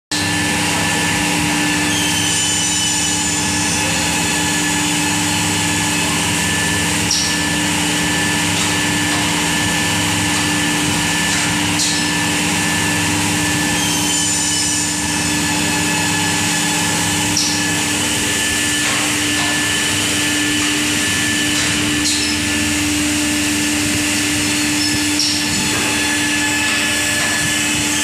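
DJ-F365E automatic edge banding machine running: a steady mechanical hum with a higher whine and an airy hiss, and a few light clicks along the way. One lower hum drops out a little over halfway through.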